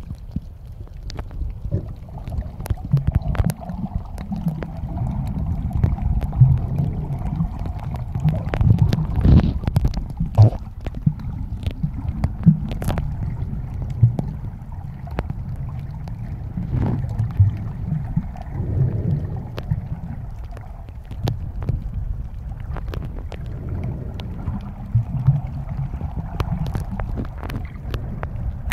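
Muffled underwater sound picked up by a camera held under the sea surface: a steady low rumble of moving water with many scattered sharp clicks and crackles.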